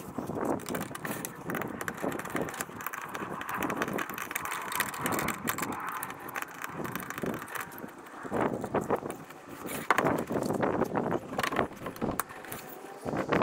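Continuous clicking, rattling and scraping of a plastic kayak rudder assembly being worked loose from its stern bracket by hand, with many sharp clicks.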